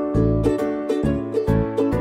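Background music: a light, bouncy plucked-string tune with a bass line, ukulele-like.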